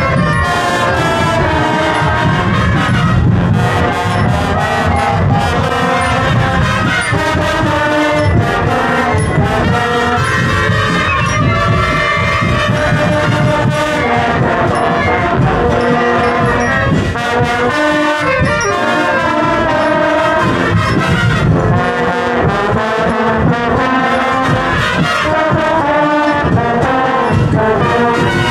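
Marching band playing a tune, brass instruments over a steady drum beat.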